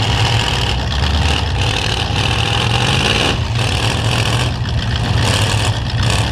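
Engines of several demolition derby trucks running loudly together, a steady low drone with a noisy upper wash that swells and dips.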